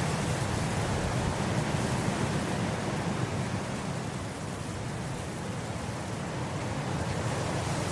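Wind blowing across grass, a steady rushing noise that eases a little midway and builds again near the end.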